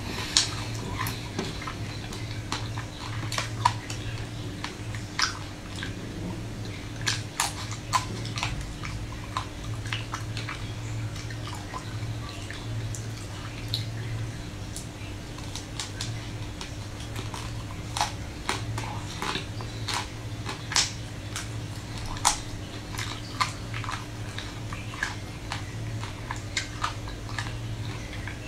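Close-up mouth sounds of someone eating an ice cream bar: scattered sharp crackles and wet clicks from biting, chewing and sucking, over a steady low hum.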